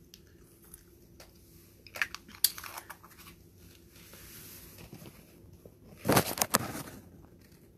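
Thin plastic water bottle being handled, crinkling and knocking in two short bursts, about two seconds in and a louder one about six seconds in.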